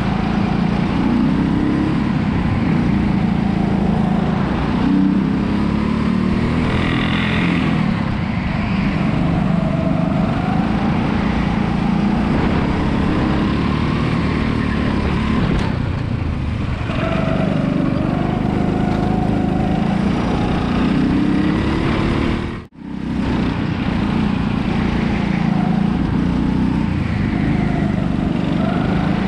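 Rental kart's small petrol engine running hard from the driver's seat, its pitch rising and falling as it accelerates out of corners and lifts into them. The sound cuts out for a split second about three quarters of the way through.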